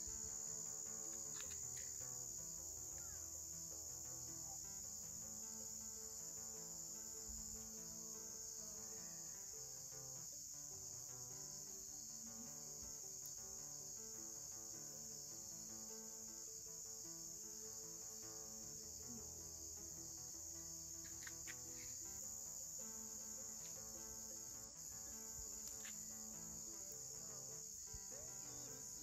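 Crickets chirring steadily in a continuous high-pitched trill.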